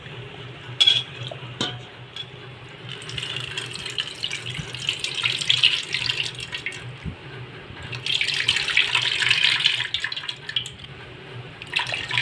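Water splashing and trickling in a bowl as soaked tamarind is worked into juice, in two bouts, with a couple of sharp clinks near the start.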